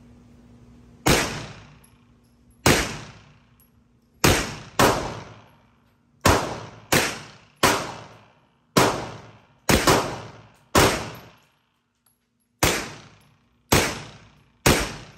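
Hi-Point 995 9mm carbine fired semi-automatically, a string of about a dozen shots spaced unevenly, half a second to two seconds apart, each with a ringing tail.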